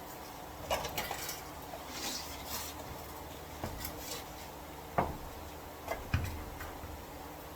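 Light metallic clinks, clicks and a few sharper knocks of metal parts and tools being handled while a manual locking hub is fitted back onto the wheel hub, with a brief scrape about two seconds in.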